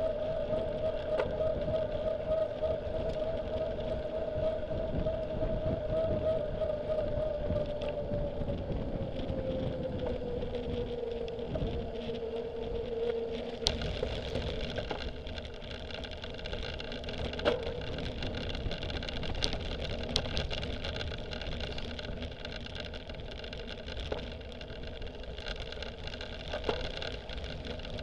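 Cyclocross bike ridden at speed: a steady tyre hum with wind rushing over the camera. The hum drops in pitch as the bike slows about halfway through. Once the bikes leave the pavement for grass and dirt, it gives way to rougher rumbling, with sharp knocks and rattles.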